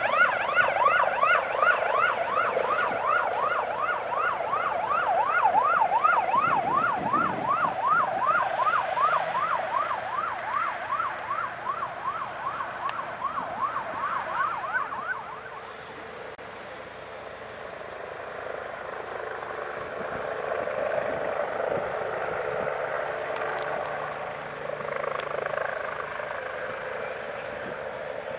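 Emergency vehicle siren in fast yelp mode, repeated rising sweeps about three a second, cutting off about fifteen seconds in. After that, the engines of the stopped emergency vehicles are running.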